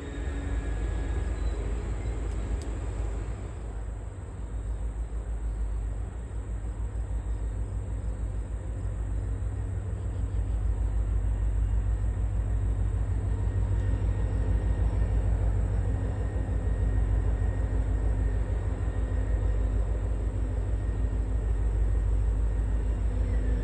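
EMD diesel locomotives of a passenger train running, a deep, steady engine sound that grows louder about ten seconds in.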